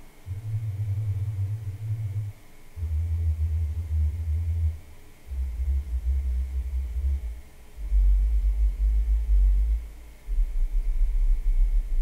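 Bass test signals from a Monolith Audition B5 bookshelf speaker blended with an SVS 3000 Micro subwoofer, uncorrected before EQ. Five bass bursts of about two seconds each, with short gaps between, each lower than the last, stepping down from about 100 Hz to about 40 Hz.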